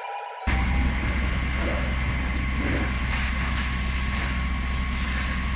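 A steady low mechanical rumble with faint, thin high tones over it, starting abruptly about half a second in.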